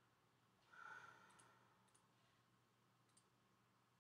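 Near silence with a few faint computer mouse clicks and a faint sigh about a second in.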